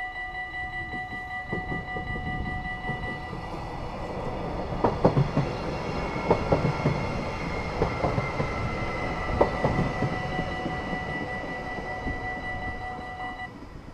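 Electronic level-crossing bells ringing steadily while a Stadler GTW electric multiple unit runs through the crossing, its wheels knocking sharply over the rail joints several times in the middle. The bells stop shortly before the end as the crossing clears.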